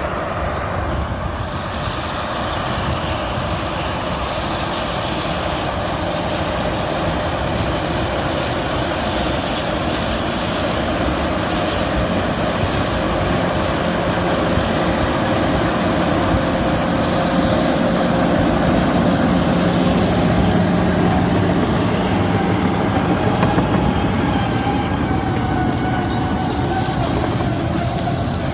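CAT D8 bulldozer running steadily, its diesel engine and steel tracks making a continuous mechanical rumble with a steady whine over it.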